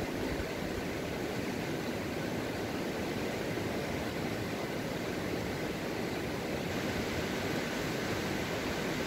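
A nearby mountain stream rushing, a steady even hiss of water.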